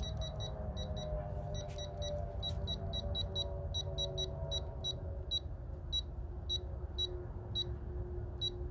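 Digital torque wrench beeping rapidly as the fastener is pulled toward its 30 ft-lb target. The beeps come about three or four a second and grow sparser near the end, over a faint low hum that slowly drops in pitch.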